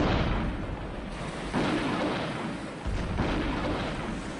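Naval artillery bombardment: heavy booms with a continuous rumble, fresh blasts about a second and a half in and again about three seconds in.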